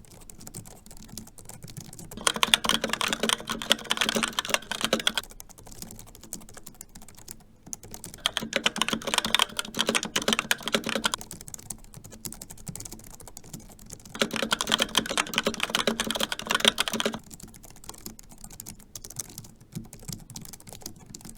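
Fast, continuous typing on a computer keyboard, dense key clicks throughout. Three louder stretches of about three seconds each alternate with quieter typing.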